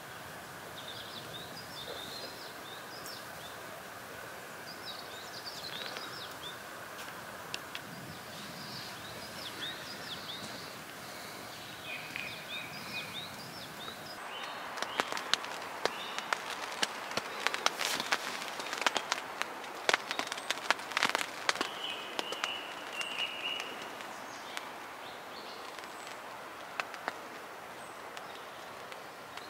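Small birds chirping again and again over a steady outdoor hiss. About halfway through, a run of sharp crackles and snaps sets in for about ten seconds, louder than the birdsong, then dies away.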